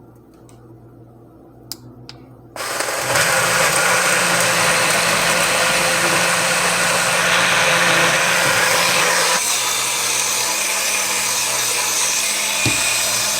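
BlendJet 2 portable blender starting about two and a half seconds in and running loudly, its sound shifting slightly about nine seconds in. It is straining on frozen mango chunks, which the owner says it keeps struggling with.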